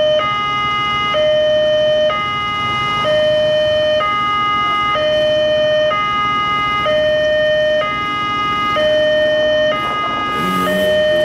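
Railway level-crossing warning alarm sounding at a closed crossing: an electronic signal alternating between a lower and a higher tone, about one tone a second, warning that a train is approaching. Near the end an engine revs up and down.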